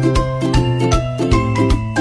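Background music with a steady beat, about four beats a second, and a melody of short, bright notes.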